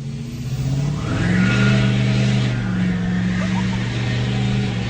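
Honda K24 inline-four engine running, with its pitch stepping up about a second in, under a steady grinding noise from the accessory belt drive: the sign of a failing AC compressor.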